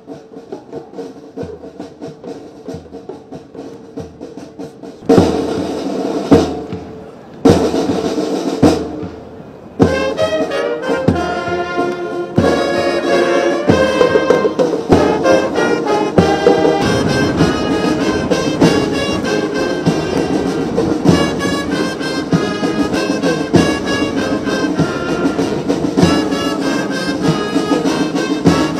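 Military brass band: a steady drum beat, then a few loud booms that ring out between about five and ten seconds in, then the full band playing with brass and drums.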